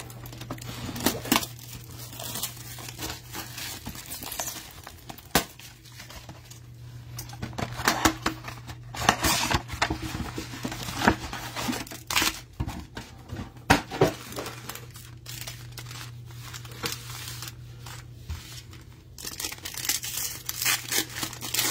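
Plastic wrapping and foil trading-card packs from a mega box being crinkled and torn open by hand, in irregular crackling rustles, over a steady low hum.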